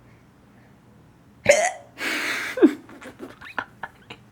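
A person hiccuping: a sudden loud hiccup about one and a half seconds in, then a breathy rush of air ending in a second sharp, falling-pitched hiccup. After that come faint scattered clicks.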